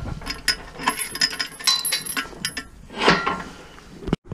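Steel gate chain rattling and clinking against the gate's tubular bars as the gate is handled, a quick run of metallic jingles and clicks, with a louder clank about three seconds in.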